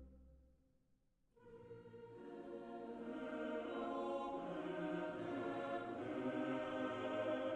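Background music: one passage fades out in the first second, then after a short near-silent gap a new piece of sustained, layered chords comes in about a second and a half in and grows louder.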